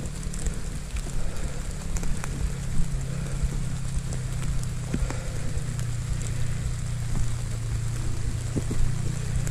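Footsteps rustling through wet dead leaves and grass while walking, over a steady low rumble of wind on the microphone.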